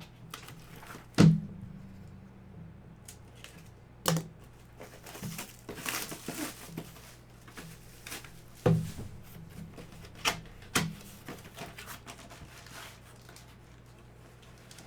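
Hands unpacking and handling items on a hard surface: several sharp knocks as things are set down, the loudest about a second in and another near nine seconds, with a brief crinkle of packaging in between.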